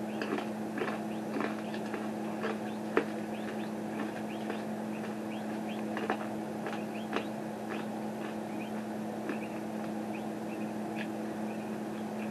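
Chewing of a mouthful of crunchy toasted corn nuggets: short, irregular crunches every half second or so, over a steady electrical hum.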